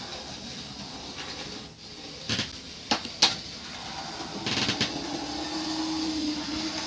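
Sharp plastic clicks and clacks of N gauge model railway stock being handled and set on the track, a few single clicks and then a short cluster, over a steady background hum with a steady low tone in the second half.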